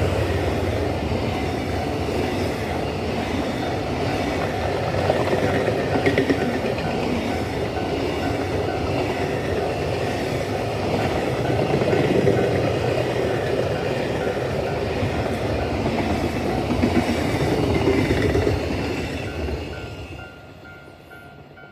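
A train hauled by a DF200 diesel-electric locomotive runs over a level crossing with a steady rumble and wheels clacking over the rail joints. A level-crossing warning bell pulses through it. The train noise dies away near the end, leaving the bell.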